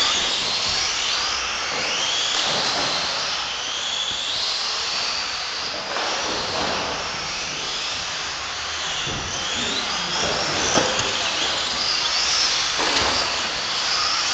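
Several Tamiya TT-01 electric RC touring cars racing. Their electric motors give a high whine that rises and falls in pitch as the cars accelerate and slow for the corners.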